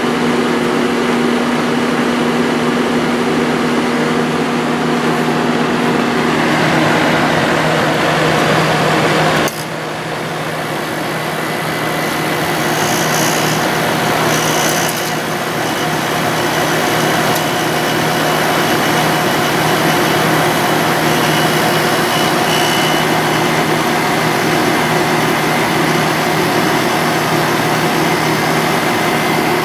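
1995 Sharp Comfort Touch 8,500 BTU window air conditioner running steadily, its fan motor bearings freshly oiled. The hum shifts in pitch around six seconds in, and there is a sharp click about nine and a half seconds in.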